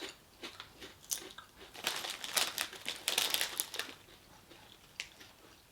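A crisp packet crinkling and ridged potato crisps being crunched in the mouth, with a dense run of crackles between about two and four seconds in.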